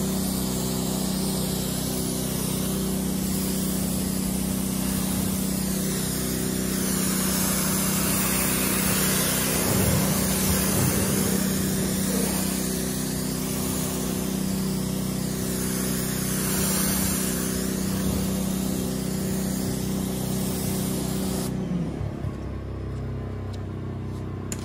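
Pressure washer spraying water: a steady hiss over a steady low hum. The spray stops suddenly about 21 seconds in, leaving the hum.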